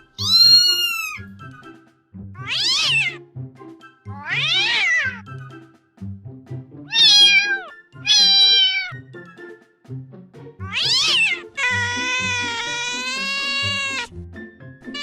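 Domestic cat meowing, about seven separate meows each around a second long and rising then falling in pitch; the last is a long drawn-out meow of over two seconds with a wavering pitch. Background music runs underneath.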